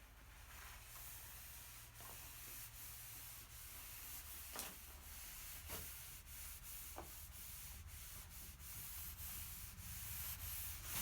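Faint, steady rubbing on a wood surface, with a few light ticks and a low steady hum underneath.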